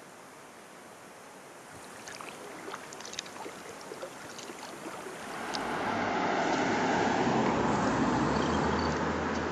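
A faint steady hiss of water and wind, then water splashing and trickling with small drips and clicks. About six seconds in it gives way to louder, steady road-traffic noise with a low engine hum.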